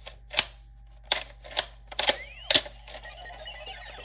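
Sharp plastic clicks from a Power Rangers Megaforce Gosei Morpher toy as a Power Card is handled and its button pressed, about five in the first two and a half seconds. The toy's speaker then plays a short electronic sound effect that starts with a rising tone and runs on for over a second.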